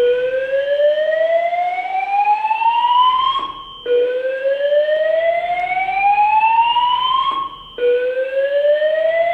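Honeywell Notifier fire alarm sounding its slow-whoop evacuation tone: a loud tone rising steadily in pitch for about three and a half seconds, breaking off briefly, then starting again from the bottom, three times over.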